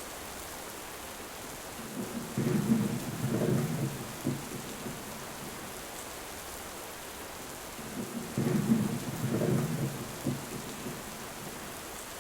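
Steady rain falling, with low rolling thunder rumbling twice: once about two seconds in and again about eight seconds in.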